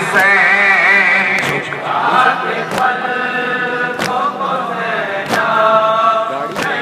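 Men chanting a noha, a Shia mourning elegy, together, with a sharp slap about every second and a quarter keeping the beat, which fits matam (mourners beating their chests in time). Six strikes fall in the span.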